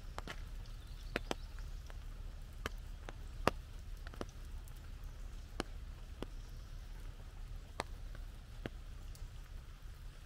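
Scattered raindrops tapping on an umbrella: sharp, irregular single taps about once a second, one louder than the rest about a third of the way in, over a low steady rumble.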